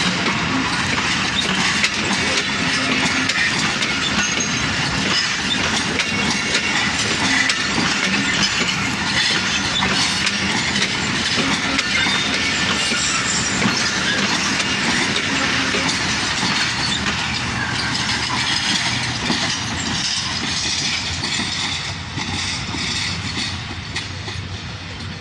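Pakistan Railways passenger coaches rolling past, their wheels clattering steadily over the rail joints and the diamond crossing. The sound fades somewhat near the end as the last coaches move away.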